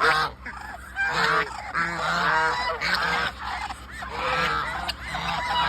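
Geese honking loudly, a flock calling over one another in repeated overlapping honks.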